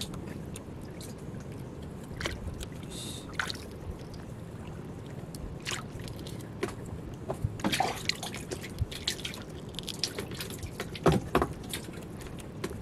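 Water dripping and splashing in small, irregular splashes as a wet handline is worked hand over hand over the side of a wooden boat, with a steady low wash of water underneath; a few louder splashes come near the end.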